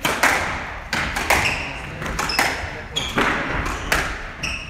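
Squash rally: the ball cracking off rackets and the court walls in a quick run of sharp, echoing knocks, about two a second. Short squeaks of court shoes on the wooden floor come between the shots.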